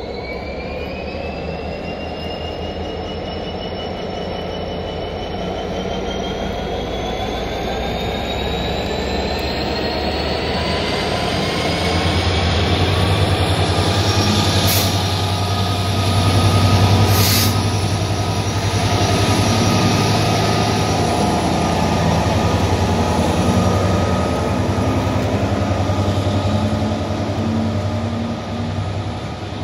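Euro Cargo Rail class 247 (EMD Class 66-type) diesel freight locomotive hauling a container train past, its diesel engine drone growing louder and deeper from about twelve seconds in as the locomotive draws level. A whine climbs slowly in pitch through the first half, and the wagons roll past with wheel squeal and a couple of sharp clicks.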